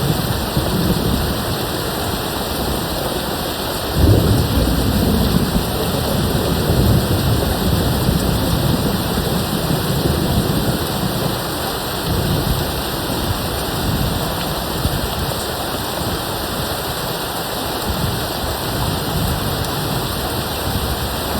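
Steady heavy rain with thunder rumbling in the distance. About four seconds in, a louder peal of thunder breaks suddenly and rolls on, fading slowly.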